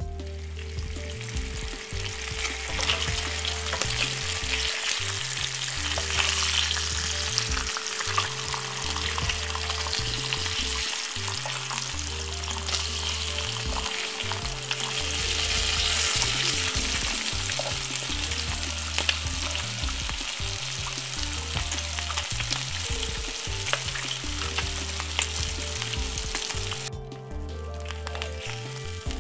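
Bacon frying in a little oil in a frying pan on medium heat: a steady sizzle full of small crackles and pops. The sizzle drops away briefly near the end.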